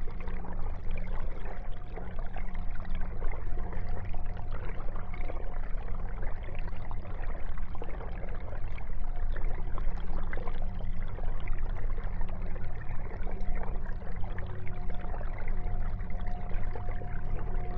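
Aquarium water bubbling and splashing from a column of air bubbles rising through the tank, a steady wash of water noise with a faint steady hum that comes and goes.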